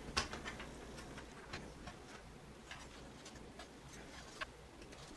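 Faint, irregular light clicks and taps of an optical DVD drive being handled and pushed against a computer case's drive bay, over a low steady hum.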